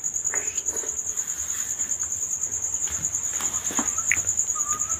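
Cricket trilling steadily, a high rapidly pulsing note, with a few faint clinks from kitchenware in between.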